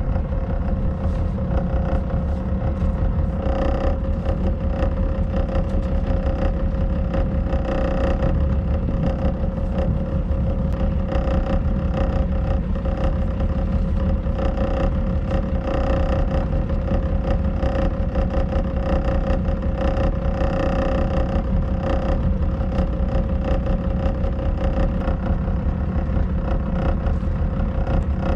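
Engine of a small pleasure boat running steadily under way, a constant drone with a steady hum in it.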